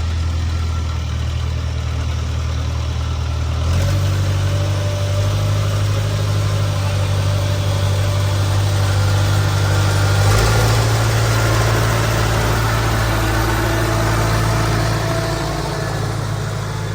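An engine running steadily at low speed. Its pitch steps up about 4 seconds in and changes again about 10 seconds in as the throttle is moved.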